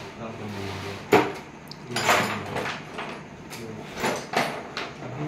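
Handling noise from the back of a split AC indoor unit as wires and fittings are worked on by hand: scattered plastic clicks and knocks with some rustling. A sharp knock about a second in is the loudest sound.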